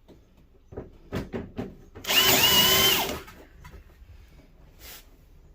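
Power drill with a hex bit running for about a second, driving a screw into the plastic back cover of a CRT television. A few light knocks come before it as the screw and bit are set.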